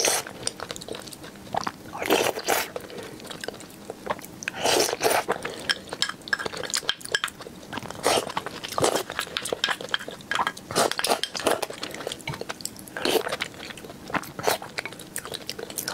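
Close-miked eating sounds: wet chewing and slurping of a noodle and meat stew, and broth sipped from a bowl, in a string of short irregular bursts.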